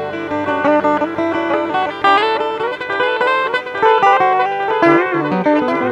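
Guitar playing a picked melody, single notes and chords changing quickly and ringing on, with no voice over it.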